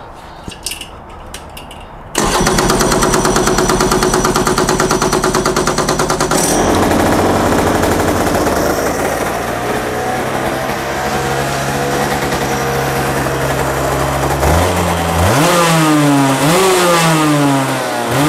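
IAME X30 125cc two-stroke kart engine firing up about two seconds in and running loudly, then settling into an idle. Near the end it is revved in several short blips, its pitch rising and falling with each one.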